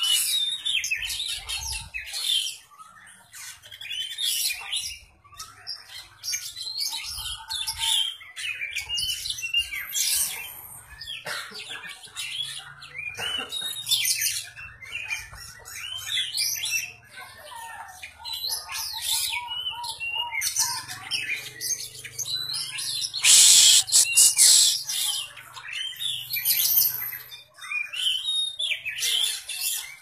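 Caged oriental magpie-robin (kacer) singing a long, varied run of chirps, whistled phrases and harsh calls as it practises songs copied from master birds. A loud harsh burst comes about three quarters of the way through.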